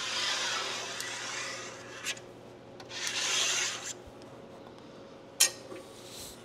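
Squeegee scraping solder paste across a metal PCB stencil in two strokes: a long one, then a shorter one about three seconds in. A sharp click follows about five seconds in.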